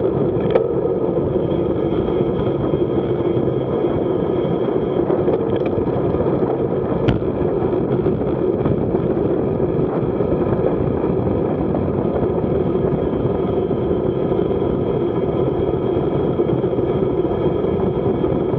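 Wind rushing over the microphone of a bike-mounted camera on a fast road-bike descent at about 30 mph, a steady loud roar mixed with tyre noise on asphalt. There are two short clicks, about half a second in and about seven seconds in.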